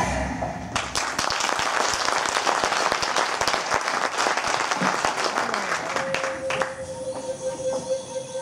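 Theatre audience applauding after a dance number: many hands clapping, starting about a second in and dying away near the end.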